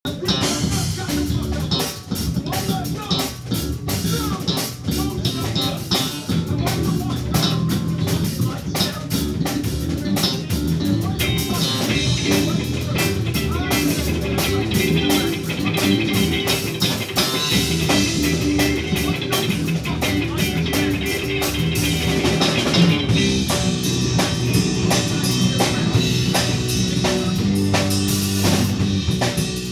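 A live band playing: guitar over a drum kit, with a steady run of drum hits throughout. The playing gets brighter and busier about eleven seconds in.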